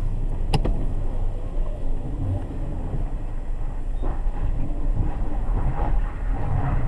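Car driving slowly, heard from inside the cabin: a steady low rumble of engine and tyres. A single sharp click about half a second in.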